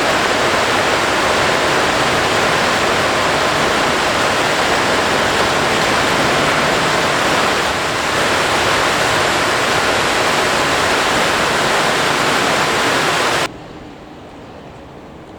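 A steady, loud rushing noise that cuts off suddenly about thirteen seconds in, leaving a quieter hiss.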